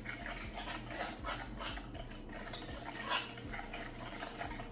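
A utensil scraping and stirring eggs in a frying pan, broken by several short, muffled coughs into an arm, the loudest about three seconds in, set off by a heavy dose of black pepper.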